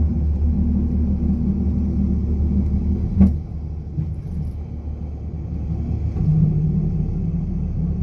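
Steady low rumble of a moving coastal rail car heard from on board, with a single sharp knock about three seconds in.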